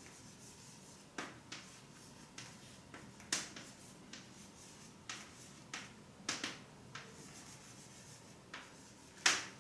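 Handwriting strokes: a dozen or so short scratches and taps at irregular intervals, the loudest a little after three seconds and near the end.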